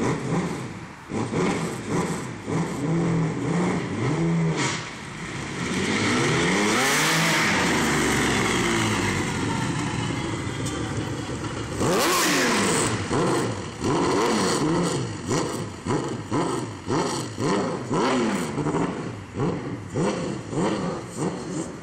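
Formula 3000 race car's V8 engine, fitted with a new exhaust system, revving in quick blips, then two long loud runs about 6 and 12 seconds in, followed by a string of rising and falling revs that fade as the car moves away.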